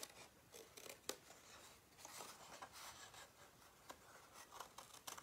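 Faint snips of small scissors cutting a diagonal miter across the corner of a sheet of cardstock, a handful of sharp clicks over light paper rustling.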